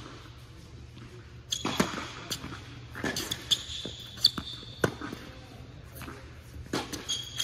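Tennis point on an indoor hard court: a serve and the rally that follows, with racquets striking the ball and the ball bouncing at irregular intervals, and sneakers squeaking on the court surface. The hits echo in the large hall.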